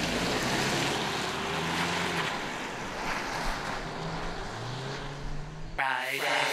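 Honda Civic driving off across a paved lot: road noise with wind buffeting the microphone. Near the end it is cut off by a sweeping jingle.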